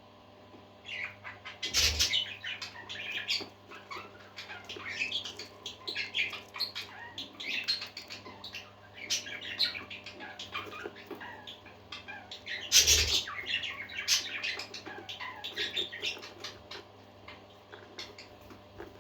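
Several parakeets chattering and chirping without a break. Two louder sudden bursts stand out, about two seconds in and again about thirteen seconds in.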